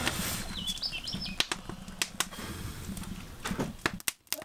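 Firewood fire burning in an outdoor firebox, crackling with sharp scattered pops over a low fluttering rumble. A small bird chirps briefly about half a second in.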